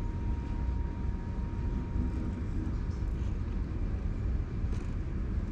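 Steady low rumble of background noise, with a faint thin high tone that fades out about two seconds in.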